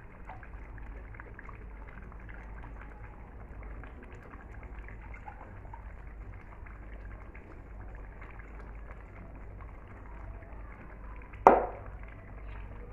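Hands washing raw chicken pieces in a plastic basin of water: soft splashing and sloshing, with one sharp knock near the end.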